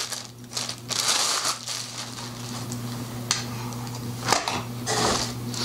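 Plastic packaging crinkling in several spells as chrome drum-rack tubes are unwrapped and handled, with two sharp clicks about three and four seconds in as metal tubes are laid down on the pile of hardware.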